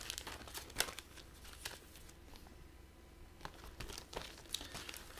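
Vintage paper and plastic-film potato chip bags being handled, crinkling in faint, scattered crackles.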